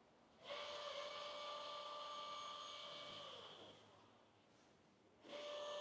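Chainsaw running at full throttle, heard faint and distant: a steady high whine that winds down about three seconds in, goes quiet, then revs up again near the end.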